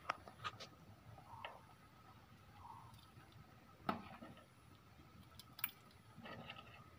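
A metal ladle stirring thin rice porridge (nombu kanji) in a metal pot: soft sloshing with a few sharp clinks of the ladle against the pot, the loudest about four seconds in.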